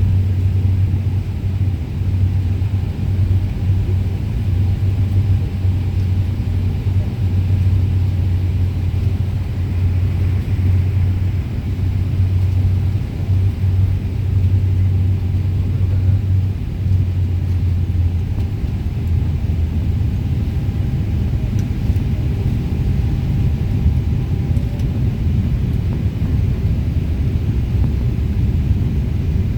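Steady low rumble of an airliner's engines and rushing air, heard inside the passenger cabin on the approach to landing.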